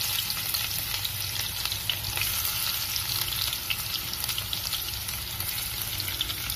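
Chopped onion frying in hot oil in a kadai: a steady sizzle with many small crackles and pops, easing a little over the seconds.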